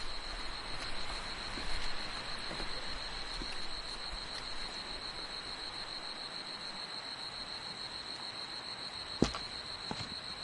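A steady high-pitched tone holds over an even hiss, with a few sharp clicks, the loudest about nine seconds in.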